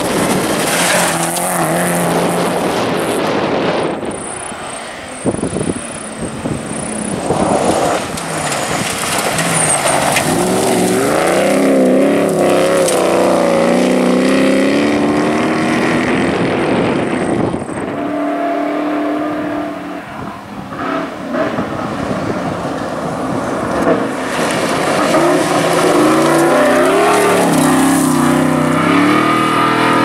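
Rally cars at speed on a gravel stage, engines revving hard and dropping back through gear changes as they pass, with the rush of tyres on loose gravel. The engine pitch climbs and falls several times, easing off about two thirds of the way through before another car builds up.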